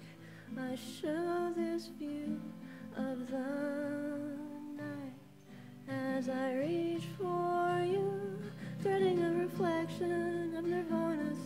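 A woman singing long held notes that slide in pitch, accompanied by an acoustic guitar.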